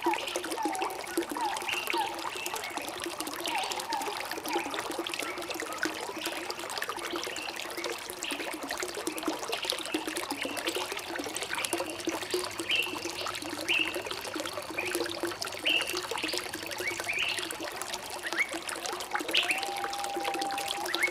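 Running water trickling and pouring steadily, with small birds chirping over it in short repeated calls.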